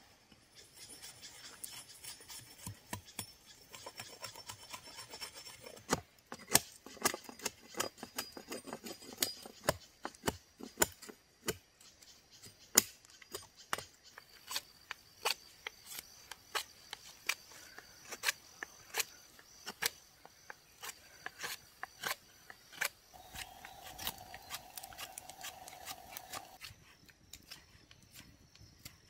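Hatchet blade striking and shaving a thin wooden stick: a long run of sharp strokes, one or two a second, as the branch is trimmed.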